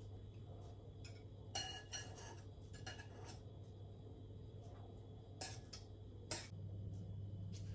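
Metal fork clinking against a bowl while a floured pork cutlet is dipped and turned in beaten egg: a handful of short, sharp clinks, the sharpest near the end, over a low steady hum.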